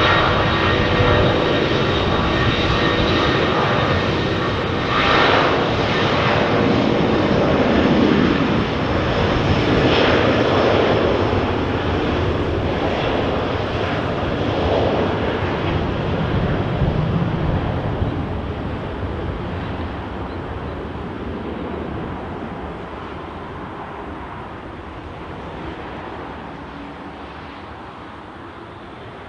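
Korean Air Airbus A330-300's twin Pratt & Whitney PW4168A turbofans at take-off thrust, loud with a steady whine. The pitch falls as the jet passes, then the sound fades steadily over the last ten seconds as it climbs away.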